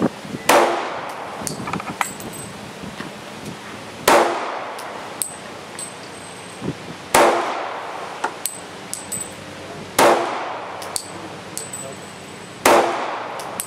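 Glock 27 subcompact pistol firing .40 S&W rounds in slow fire: five shots about three seconds apart, each a sharp crack with a long echoing tail.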